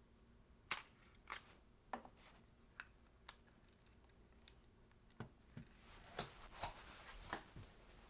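Small sharp clicks and taps from handling the partly reassembled camera body and its parts, about five spaced clicks, then a stretch of rustling handling noise with a few more clicks near the end.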